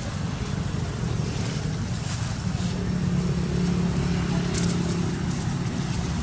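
A motor vehicle's engine running steadily, a low hum over a rumble, clearest from about two and a half seconds in until near the end.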